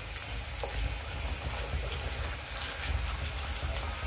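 A ground paste frying in hot oil in an aluminium kadai: a steady sizzle with scattered crackles and pops.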